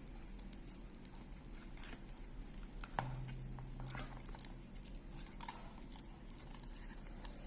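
Faint handling noises of a wristwatch and its leather strap: small scattered clicks and rustles, with one sharper click about three seconds in.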